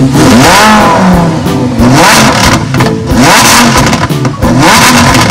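A car engine revving sound, its pitch sweeping up and falling back several times in quick succession.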